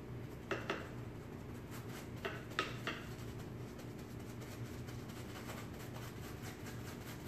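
A few light, sharp clicks and taps of something hard: a pair about half a second in and three more between two and three seconds, then fainter ticking, over a steady low hum.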